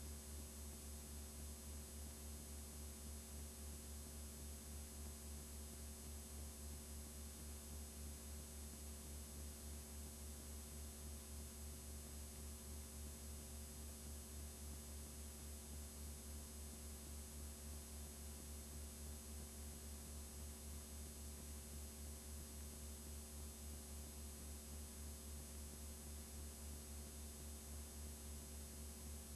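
Steady low hum with hiss from a blank stretch of videotape playing back as snow, its level pulsing evenly.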